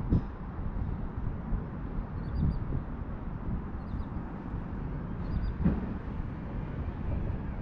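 Wind rumbling steadily on the microphone, with a few faint bird chirps and a couple of soft thumps from the rod being handled.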